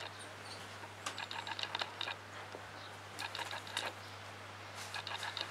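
Havanese puppies scuffling on a tiled floor: quick clusters of light clicks and taps, likely claws on the tile, about a second in, around three seconds in and again near the end, over a steady low hum.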